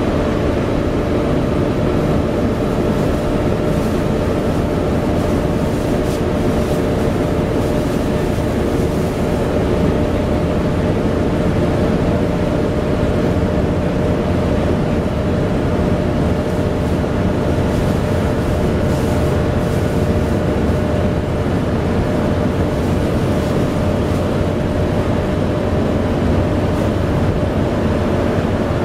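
Volvo B7TL double-decker bus's engine running steadily at speed, with the loud steady whine of its cooling fan (the 'hoover') over it.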